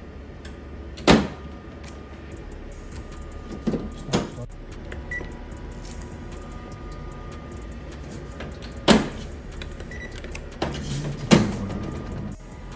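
Front door of a Sharp BP-20M22 copier being pushed shut: sharp plastic clunks and knocks about a second in, around four seconds, near nine and near eleven seconds, over a steady low hum.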